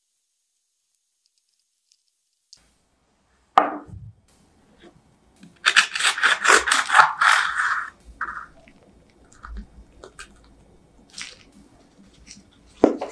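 A knife sawing through the crisp, cracked crust of a baked cream puff: a run of dry crackling strokes lasting about two seconds. A single knock comes about three and a half seconds in, and another near the end.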